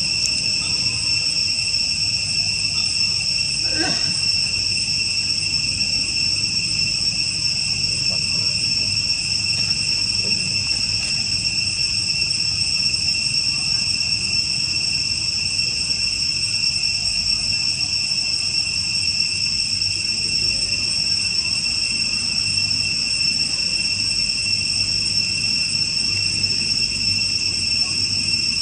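Steady insect chorus: a constant, unbroken high-pitched drone sounding at several pitches at once.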